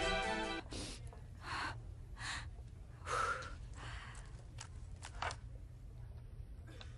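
A person's short breaths and a sigh, about five in the first four seconds, followed by a few light clicks. A music sting fades out at the very start.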